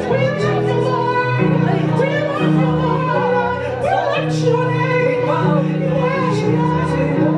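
Worship singing over an instrumental accompaniment of long held chords.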